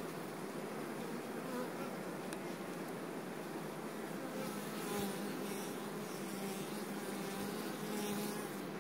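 Honeybee colony buzzing on the frames of an open hive: a steady hum of many bees, with one nearer bee's drone standing out in the second half.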